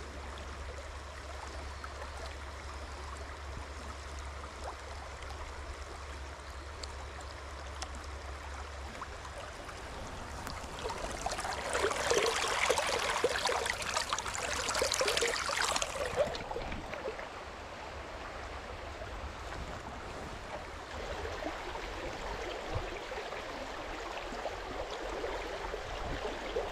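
River water running over stones in a shallow riffle: a steady rush that swells louder for several seconds near the middle.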